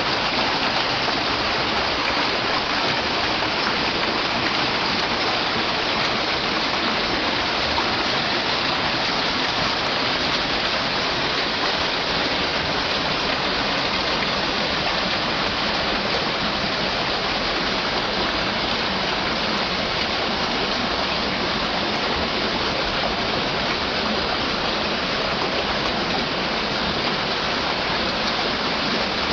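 Waterfall: a steady, even rush of falling water, unbroken throughout.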